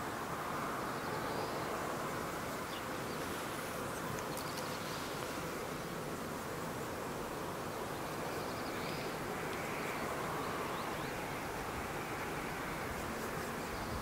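Steady outdoor ambience: an even, unbroken hiss, with a few faint higher sounds here and there.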